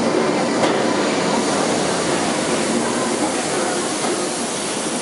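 Jungfraubahn electric narrow-gauge rack-railway train running past the platform: a steady rumble with a single sharp click about half a second in.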